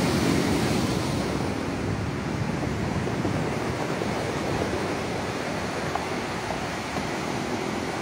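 Pacific surf breaking and washing up over a pebble beach, a steady rushing noise, with wind buffeting the microphone.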